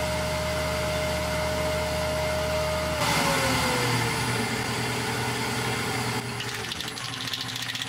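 Wood lathe running with a steady whine and hum, then switched off about three seconds in, its pitch falling as it spins down.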